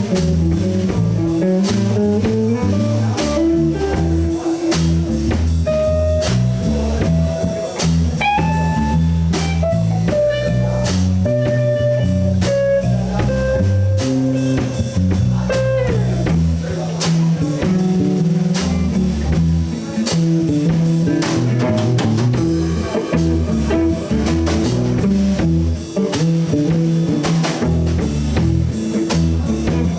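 Live blues trio playing an instrumental break: a lead guitar plays held notes that bend in pitch over a walking bass line and a drum kit keeping time with steady cymbal strokes.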